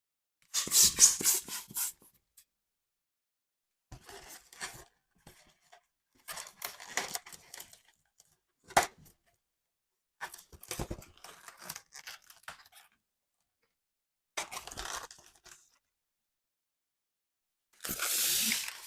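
Latex balloons being handled, stretched and twisted: six separate bursts of squeaky, crackling rubber rubbing, the first and last the loudest, with one short sharp snap about nine seconds in.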